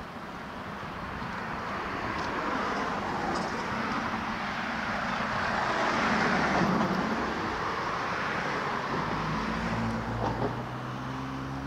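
A car driving past on the street: its tyre and engine noise swells to a peak about six seconds in, then fades. A steady low engine hum comes in near the end.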